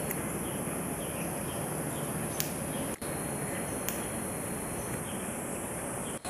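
Insects calling in a continuous high-pitched drone over a low background rumble, with two faint ticks in the first half and a brief dropout about halfway.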